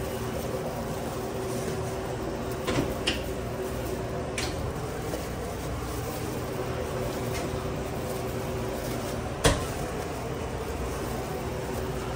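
Steady machine hum with a constant low tone, under a few light clicks and knocks from ingredients and containers being handled at a sandwich prep counter; one sharper knock comes about nine and a half seconds in.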